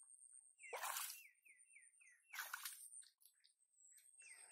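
Faint footsteps squelching in wet mud, twice, while a bird gives a quick run of about six descending chirps, around four a second. A thin, steady, high-pitched whine runs underneath.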